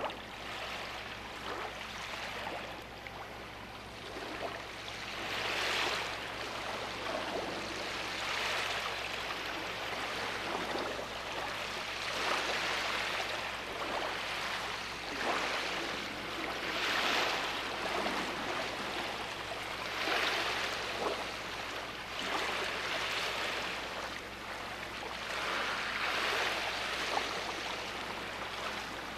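Sea waves breaking and washing onto a beach, the surf swelling and easing every few seconds.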